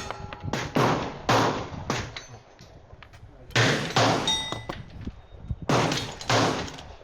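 A string of about eight gunshots fired at an irregular pace, each with a short echoing tail. A brief metallic ring sounds after the shots about four seconds in.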